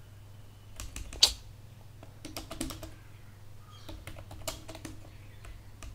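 Keys of a computer keyboard being typed in a few short, irregular runs of clicks, the sharpest about a second in.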